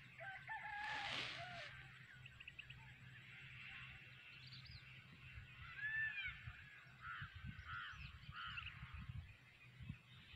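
Scattered bird calls, short arched chirps and trills coming one after another, over a low rumble of wind on the microphone.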